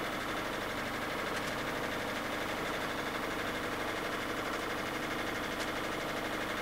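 Inboard diesel engine of a Westerly Centaur sailing yacht running steadily, motoring the boat along.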